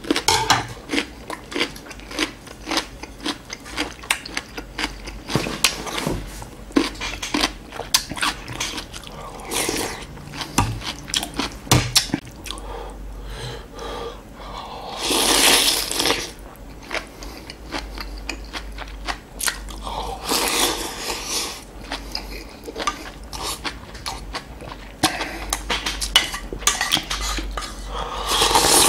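Close-miked eating of spicy beef soup with noodles: chewing and small clicks of chopsticks and spoon against the bowl, with three long slurps, the loudest about halfway through and the others a few seconds later and near the end.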